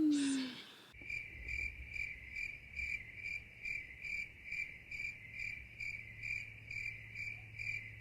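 Insect chirping steadily, a high trill pulsing about two and a half times a second over a low hum, starting abruptly about a second in.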